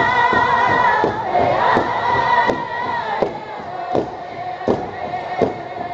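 Powwow drum group singing together in high voices over a large drum struck in unison with beaters. The singing fades out about three seconds in while the drum keeps a steady beat, roughly one strike every three-quarters of a second.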